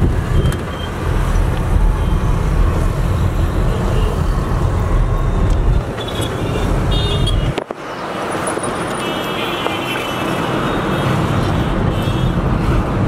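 Busy road traffic heard from a vehicle in the flow: engines of cars, minibuses, motorcycles and tricycles running, with short high horn toots now and then. The sound drops out for a moment a little past halfway, then carries on with less low rumble.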